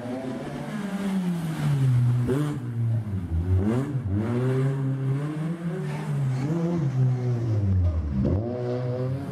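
Small rally hatchbacks' engines revving hard up a narrow cobbled street. The engine note climbs and drops several times as the drivers shift gears and lift off the throttle.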